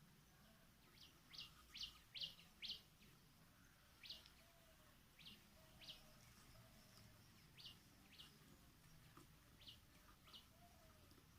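Faint short bird chirps, repeated irregularly in quick groups at first and then about one a second, over near silence.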